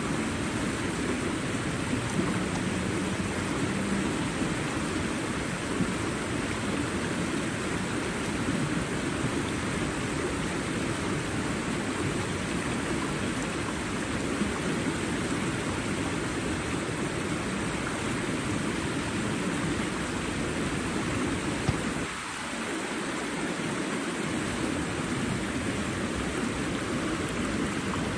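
Flowing water rushing steadily with an even hiss. About three-quarters of the way through, the deeper part of the sound drops away for a couple of seconds, then returns.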